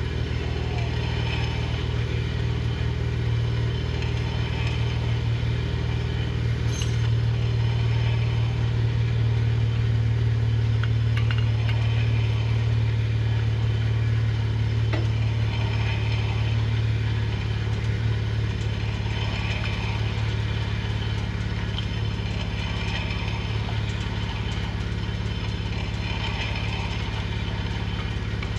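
Vehicle engine running steadily, a low hum that grows louder about seven seconds in and eases off again after about seventeen seconds.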